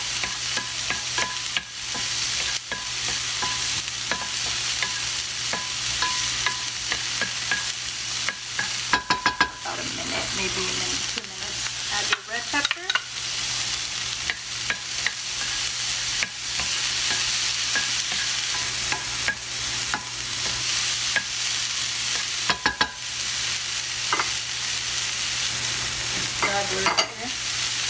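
Diced onion and bell peppers sizzling in hot olive oil in a nonstick frying pan, stirred with a wooden spoon. The spoon's scrapes and knocks against the pan come in clusters now and then.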